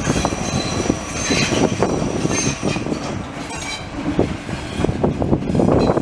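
Double-deck passenger train rolling past on the station tracks: steady rumble of the coaches, wheels knocking over rail joints and points, and a high wheel squeal in the first few seconds.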